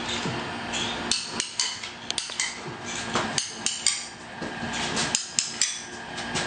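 Manual caulking gun clicking and clacking as its trigger is squeezed and released, dabbing silicone adhesive onto the back of a shower wall panel: about ten sharp, irregularly spaced clicks over a low steady hum.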